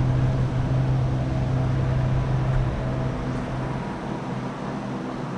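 An engine's steady low hum from a passing motor, which fades away after about three seconds.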